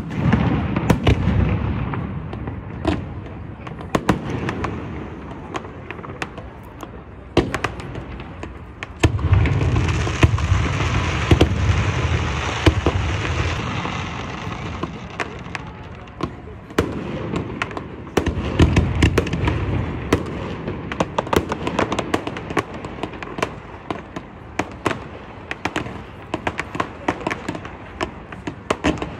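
Aerial fireworks display: a rapid, irregular stream of sharp bangs and crackles, with heavier rumbling volleys near the start, from about nine to fourteen seconds in, and again around eighteen seconds.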